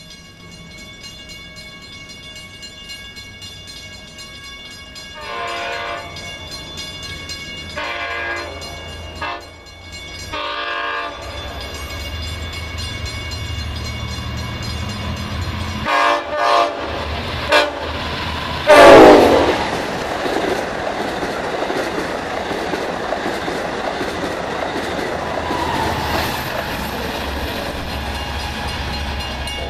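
Long Island Rail Road diesel push-pull train sounding its air horn in the grade-crossing pattern, long, long, short, long, then a few more short blasts and one loudest blast about two-thirds in. After that comes the steady rumble and wheel noise of the train running past.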